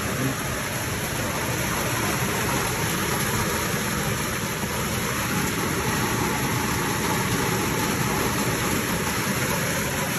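Rain falling steadily: a constant, even hiss.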